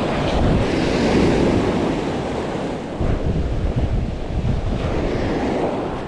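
Surf breaking and washing up the sand at the waterline, swelling about a second in and again midway, with wind buffeting the microphone.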